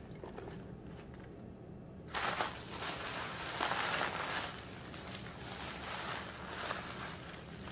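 White tissue-paper packing rustling and crinkling as it is gathered up by hand, starting about two seconds in and continuing unevenly after a quiet stretch of low steady hum.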